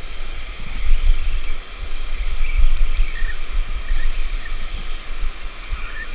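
Wind buffeting the microphone in an uneven low rumble, over the steady rush of flowing river water.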